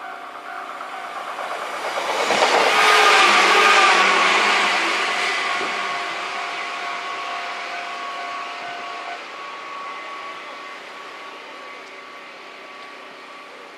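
Local train passing close by on the rails. Its wheel and track noise, with a steady whine in it, swells to a peak about three seconds in; the whine drops slightly in pitch as the train goes by, and the noise then fades away.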